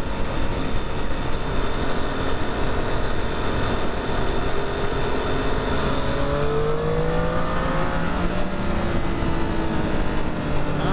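Motorcycle engines running at road speed under steady wind noise on a rider's microphone; about six seconds in, an engine's pitch climbs as it accelerates, then levels off.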